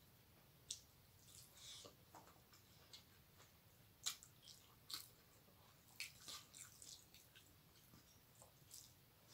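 Faint wet eating sounds of a person eating rice and curry by hand: short smacks and clicks from fingers mixing the rice in the steel plate and from chewing, a few of them louder.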